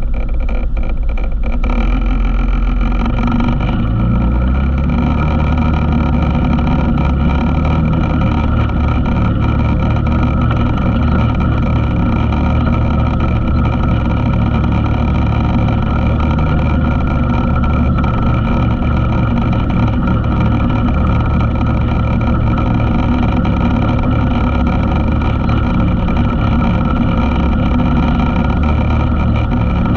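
ATV engine running under way, its revs climbing a couple of seconds in and then holding steady.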